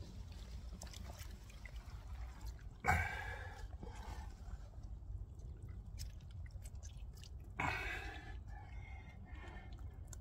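Water splashing and dripping as a large common carp is lifted out of the lake and held, with two sharper splashes about three and eight seconds in as the lively fish moves.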